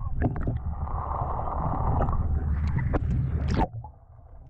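Muffled underwater rumble and rush of water past a waterproof-housed camera being hauled up on a fishing line, with scattered knocks. It drops away sharply near the end.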